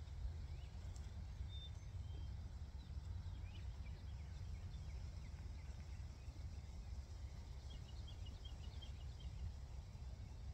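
Quiet outdoor ambience: a steady low rumble, with faint, scattered bird chirps and a quick run of them near the end.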